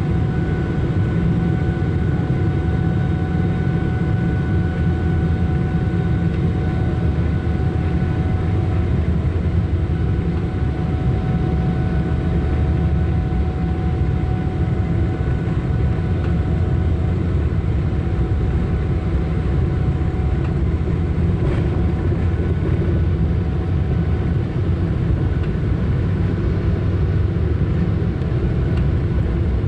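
Boeing 777-300 engines heard from inside the passenger cabin: a loud, steady rumble with a few thin, steady whining tones from the engines' fans.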